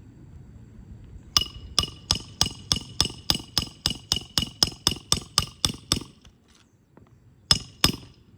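Roof snake nail-driving tool hammering a long roofing nail under a shingle. It gives a quick run of about seventeen ringing metal-on-metal strikes, three or four a second, then two more strikes near the end.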